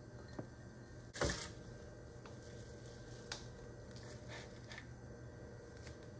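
Faint handling of fresh cilantro and kitchenware: a short rustle about a second in, then a few light clicks and taps, over a low steady hum.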